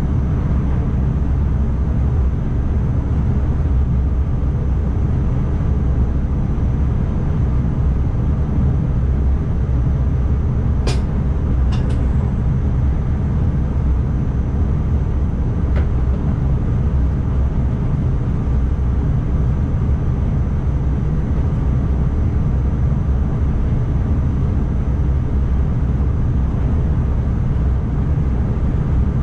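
ICMm electric multiple unit running, heard from the driver's cab: a steady low rumble of the wheels on the rail and the running gear. A few short clicks come about eleven and twelve seconds in and once more near sixteen seconds.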